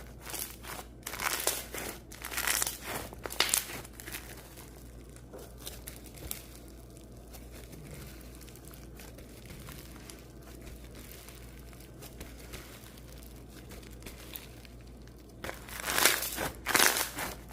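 Slime being squeezed and pressed by hand, giving crinkly, crackling pops in quick clusters for the first few seconds and again near the end, with a quieter stretch between.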